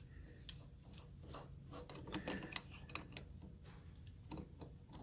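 Faint scattered clicks and light taps of metal parts being handled during a machine setup, over a low steady hum.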